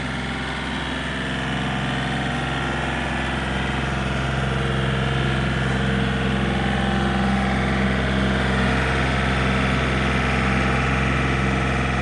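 John Deere compact utility tractor's diesel engine running steadily as it is driven, getting a little louder over the first few seconds.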